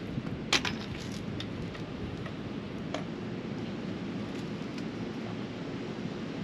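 Steady wind rumble on the microphone. A white RV drinking-water hose and its inline water filter are handled, with a sharp click of the hose fittings about half a second in and a lighter one about three seconds in.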